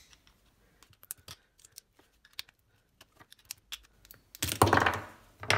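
Flathead screwdriver prying at the plastic tabs of a tweeter housing: scattered small plastic clicks and ticks, with a louder burst near the end.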